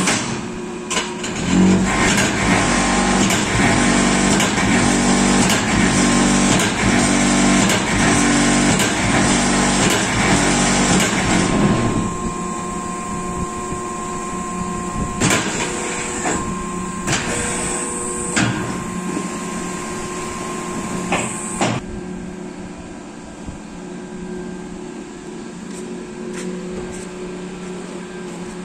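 Automatic concrete block making machine running: a loud, rapid shuddering vibration for about ten seconds, the vibrator compacting concrete in the mould, then a steadier motor hum broken by a few metal clanks as the machine moves through its cycle.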